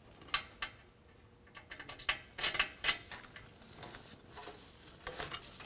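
Light metallic clicks and scrapes of a Schrader air-fill valve stem, fitted with a hex nut and star washer, being fed from behind through a drilled hole in a steel diamond-plate bumper. The clicks come in a small cluster in the middle and again near the end.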